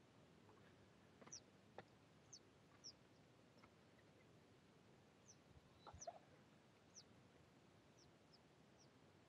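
Faint high chirps of small birds: about ten short downward-sliding calls scattered over near silence, with a few faint clicks.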